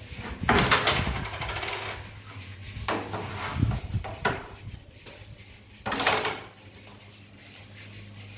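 Carrom striker shots: sharp clacks of the striker hitting the carrom men and the board, the loudest about half a second in and about six seconds in, with a few lighter knocks around three to four seconds.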